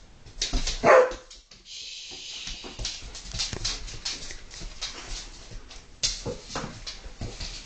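Poodles play-fighting: one gives a loud bark about a second in. Scuffling and claws clicking on a tiled floor follow, with two more short barks around six seconds in.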